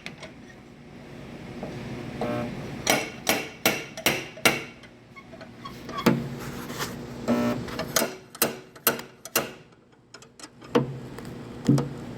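Body hammer tapping the steel quarter panel to work out a crease. The sharp metallic taps ring briefly and come in short runs of several, with pauses between.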